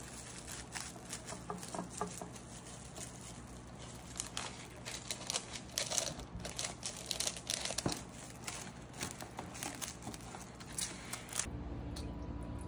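Plastic cling wrap crinkling and crackling in irregular bursts as it is stretched and pressed down over a glass baking dish. Near the end this gives way to a steady running sound from a kitchen tap at the sink.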